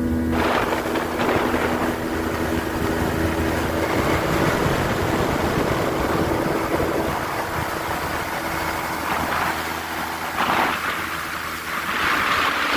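An engine running with a steady hum under heavy rushing noise that swells and dips; the hum fades out partway through.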